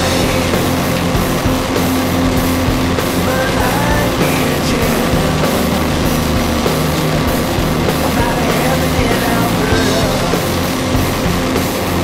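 Background rock music playing steadily.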